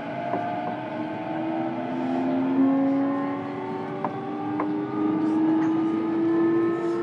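Running sound inside a JR East E233-7000 series motor car: the VVVF inverter and traction motors whine in several tones that slowly rise in pitch as the train gathers speed, over the rumble of the train running. A few sharp clicks come through, about four seconds in.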